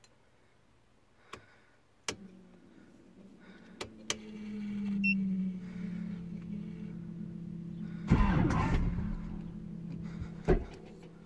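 Toggle switches on a car's aftermarket switch panel clicking, then an electric motor in the car starts humming steadily, swelling briefly a few seconds in, as the car is readied to start. About eight seconds in there is a loud burst lasting about a second, then another click.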